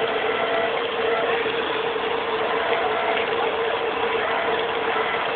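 Bumper boat motors running with a steady hum.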